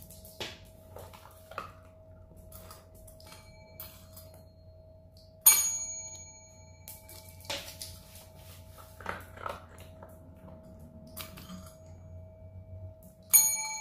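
Chrome desk service bell rung twice by a miniature dachshund's paw, about five seconds in and again near the end, each a bright ding that rings on and fades slowly. Light clicks and taps between the dings.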